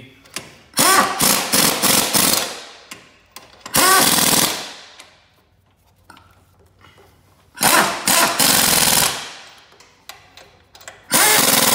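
Pneumatic impact wrench hammering on the bolts of a tracked mower's drive wheel, in four bursts of one to two seconds each, the first broken into several short spurts; the motor's pitch rises within each burst.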